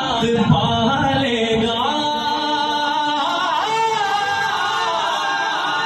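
A man singing a naat, an Urdu devotional poem in praise of the Prophet, unaccompanied into a microphone, with bending, ornamented melodic lines and long held notes.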